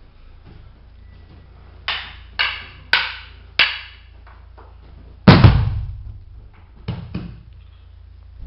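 Wooden sticks clacking together four times in quick succession, then a heavy thud of a body thrown onto the judo mats about five seconds in, followed by two lighter thumps.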